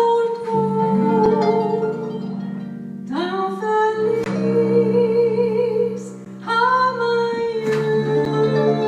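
Live Brazilian jazz from a small band: plucked harp and low plucked-string chords under a held melody line with vibrato, in phrases that restart about three and six and a half seconds in. The melody is sung by a female voice.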